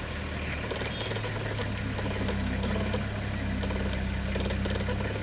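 Safari vehicle's engine idling steadily, a low even hum.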